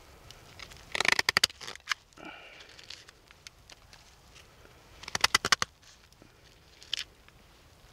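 Newly lit small fire of pine shavings and sticks crackling as it catches, in two short bursts of rapid sharp pops and one lone pop near the end.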